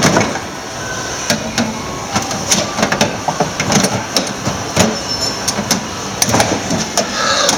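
A long metal bar prying and jabbing at a steel cash drawer's front around its hasp lock: irregular metal clanks, knocks and scraping as the drawer is forced.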